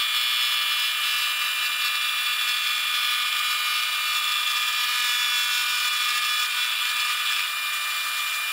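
Atlas metal lathe running under a cut, a steady high whine made of several fixed tones with no clear rhythm.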